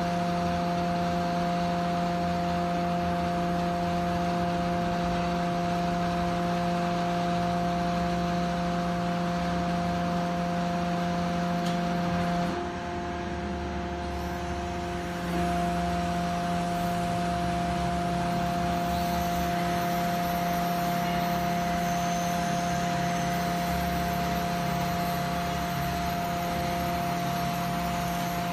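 Hydraulic power unit of a container tilter running: a steady motor-and-pump hum with a whine over it. It drops a little and shifts in pitch for a few seconds about halfway through, then carries on as before.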